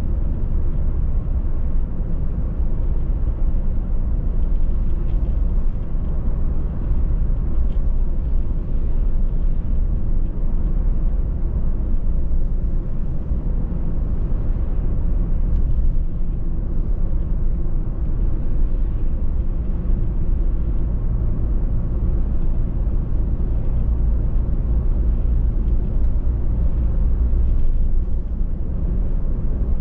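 Car driving along a road: a steady low rumble of road and engine noise, even throughout with no distinct events.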